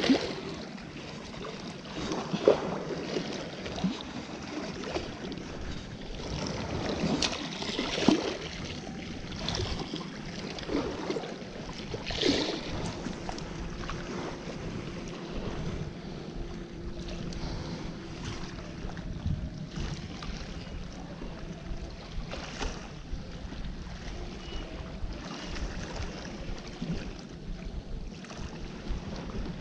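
Wind rumbling unevenly on the microphone over the steady wash of the sea, with a few brief knocks.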